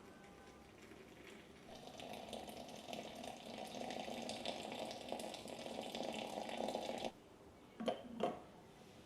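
Water running from a tap, starting about two seconds in and shut off abruptly about seven seconds in, followed by two short knocks.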